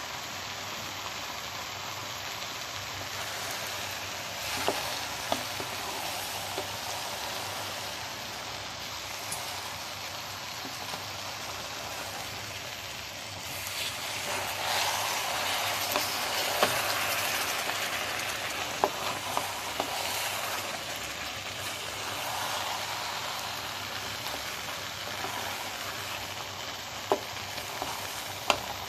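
Nendran banana pieces cooking in ghee and melted jaggery in a pan, with a steady sizzle as a wooden spatula stirs them. Now and then there is a sharp tap of the spatula on the pan. The sizzle grows louder about halfway through.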